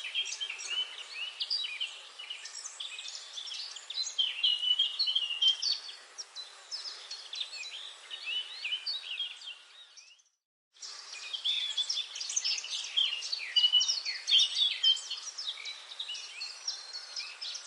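Forest bird chorus: many songbirds chirping and singing at once in quick, overlapping high phrases. About ten seconds in it cuts out completely for around half a second, then resumes.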